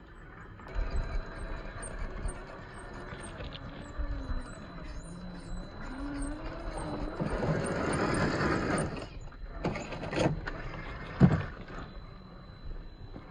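Brushed electric motor and gear drivetrain of a 1/10-scale Gmade GS02F rock crawler whining as it crawls, its pitch rising and falling with the throttle, with tyres scrabbling over rock and gravel. It is loudest in the middle, and there is a sharp knock about eleven seconds in.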